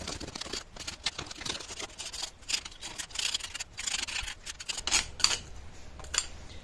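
Packed casting sand crumbling and scraping as it is broken away by hand from a freshly sand-cast metal Pelton wheel bucket, with many small clicks of sand lumps and metal. Near the end come a few sharper clinks as pliers grip and turn the casting.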